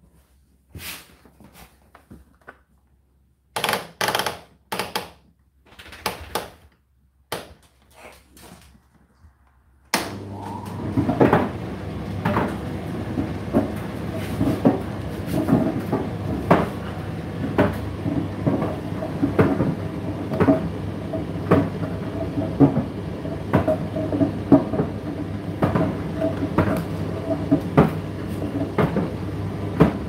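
Indesit IDC8T3 condenser tumble dryer being set and started: clicks and knocks from the controls, then about ten seconds in the motor and drum start running. It is a steady hum with frequent irregular knocks from the turning drum.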